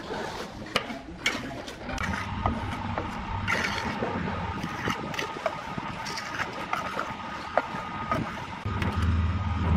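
Steel trowel scraping and tapping against wet cement mortar and clay roof tiles in short irregular strokes while the mortar is pressed and smoothed along the tile edge. A steady background hum with a thin whine comes in about two seconds in, and the hum grows louder near the end.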